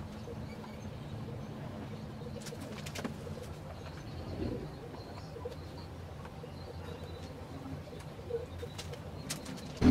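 Faint bird calls over a quiet outdoor background, with a few light taps as paper cups and lids are set down on a table.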